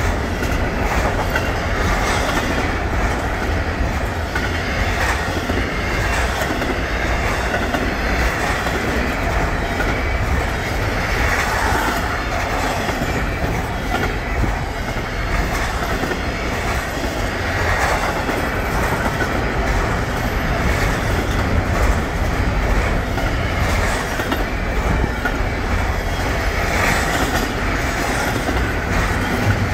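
Norfolk Southern double-stack intermodal freight train passing at speed: a steady rumble of the well cars' wheels on the rails, unbroken throughout.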